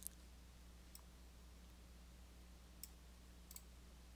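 Near silence: a few faint, sharp computer mouse clicks spaced irregularly, about five in all, over a low steady hum.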